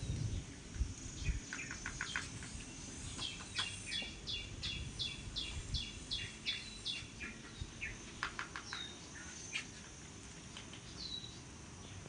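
A bird singing a fast run of repeated sharp chirps, about three a second, over a faint steady high whine. A few low thumps come near the start.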